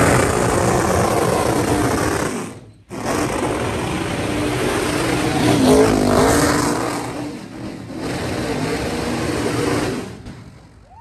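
NASCAR stock car's V8 revving hard while doing a burnout, rear tyres spinning on the tarmac. The sound cuts out for a moment about three seconds in, comes back, and dies away near the end.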